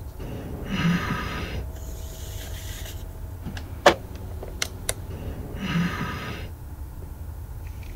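A sharp click of a drip coffee maker's push-button being pressed, the loudest sound, just before four seconds in, followed by two lighter clicks. Twice, about five seconds apart, a breathy rasping sound.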